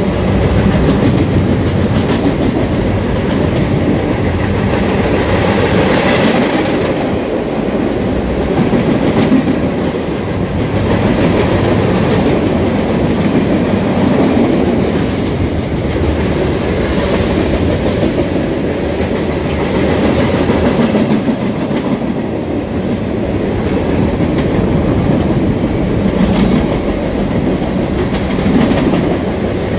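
Freight train cars rolling past on steel wheels and rail: a steady, continuous rolling noise of a long mixed freight train of well cars, tank cars and autoracks.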